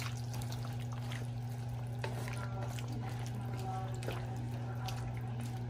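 Pork simmering in its sauce in a wok, a faint bubbling crackle over a steady low hum, with a few light clicks of a spatula against the pan.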